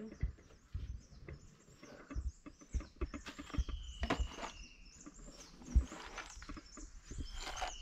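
Irregular clicks, knocks and rustling as fish and plastic bags are handled in a fish vendor's plastic crate. A faint high whistle, falling slightly, is heard twice.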